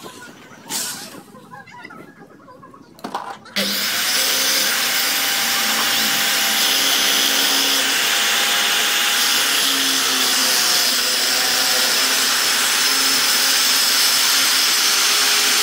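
Handheld electric circular saw switched on about three and a half seconds in and cutting along a woodgrain-laminated MDF sheet, running loud and steady under load. Before it come a few light knocks and rustles of handling.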